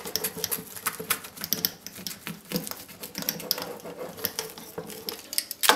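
Pizza cutter wheel rolling through a thin-based dessert pizza on a cutting board: a quick, irregular crackle of many small clicks as the wheel cuts the base, with one louder knock near the end.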